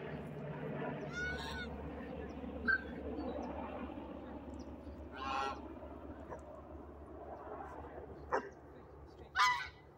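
Domestic geese honking: several short calls spread through, the loudest near the end.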